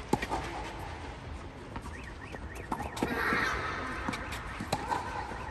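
Tennis rally with green low-compression junior balls: sharp racket strikes a second or more apart. A short harsh call sounds a little after three seconds in.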